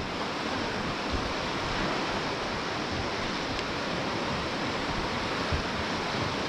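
River running high and fast, a steady, even rush of whitewater.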